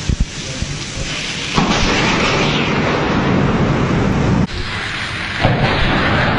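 Thunder from close lightning strikes over heavy rain: a sudden loud rumbling crash starts about a second and a half in, cuts off abruptly near four and a half seconds, and comes back loud again about a second later.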